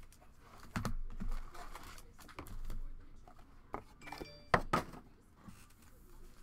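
Foil-wrapped trading card packs being shuffled and handled, with crinkling rustles and sharp knocks as they are set down in stacks on a table. The loudest knock comes about four and a half seconds in.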